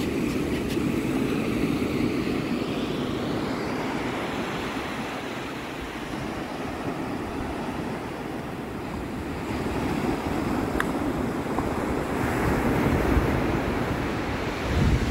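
Ocean surf breaking and washing up a sandy beach: a steady rushing wash that swells and eases as the waves come in.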